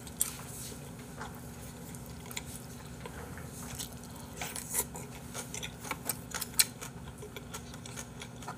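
Bossam (boiled pork with kimchi) being bitten and chewed close to the microphone: soft wet chewing with scattered sharp mouth clicks and smacks, most of them around the middle.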